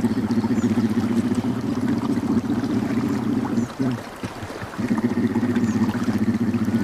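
Brown bear cubs humming while they nurse: a low, rapid, buzzing purr, the sound cubs make at the teat. It breaks off for about a second in the middle and then starts again.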